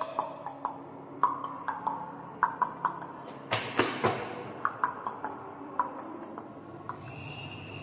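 An irregular run of about twenty short, sharp metallic pings, each ringing briefly, with two heavier clashes near the middle.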